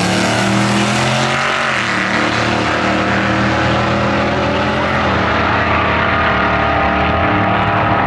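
Drag-racing cars, a Fox-body Ford Mustang and a Dodge Challenger, accelerating hard off the line, the engine note climbing in pitch and dropping at a gear shift about two seconds in and again about five seconds in. The sound loses its top end in the second half as the cars pull away.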